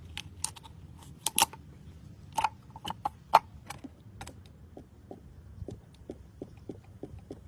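Hand work on car parts: sharp metal clicks and knocks, then a steady run of light ticks about three a second.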